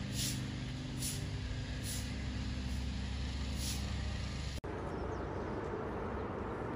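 Steady low hum of a large idling engine, with a short hiss about once a second. About two-thirds through it cuts off abruptly and gives way to an even outdoor noise.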